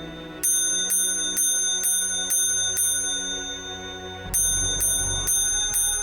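Fire alarm telegraph bell striking box code 666: six evenly spaced rings about two a second, a pause, then the next round of strikes begins. A low rumble comes in with the second round.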